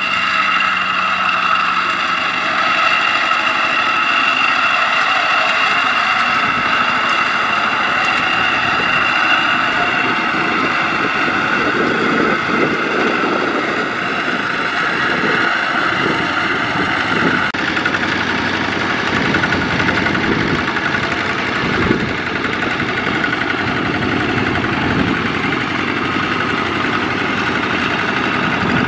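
Single-cylinder diesel engine of a two-wheel walking tractor running steadily, pulling a loaded trailer through a muddy rice paddy. About two-thirds through, the sound changes abruptly to a second, similar walking tractor's engine.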